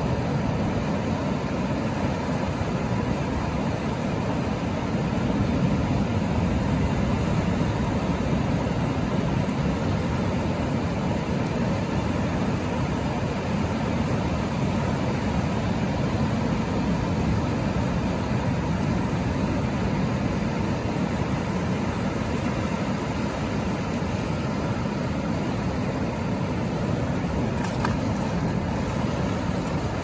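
Ocean surf: a steady, deep rush of waves breaking offshore, with shallow water washing across the sand and around the rocks.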